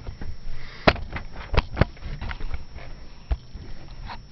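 Camera being repositioned by hand: rubbing and rustling against the microphone with several sharp clicks and knocks, the loudest about a second in.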